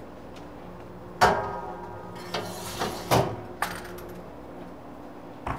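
A metal baking tray clangs and rings against a rack or shelf about a second in, followed by rustling, a second knock and a click as a kitchen appliance door is shut.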